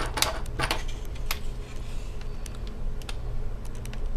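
Light plastic clicks and taps from handling a laptop's screen bezel and working at its edge with a small metal tool. Several come close together in the first second or so, then only a few scattered ticks, over a low steady hum.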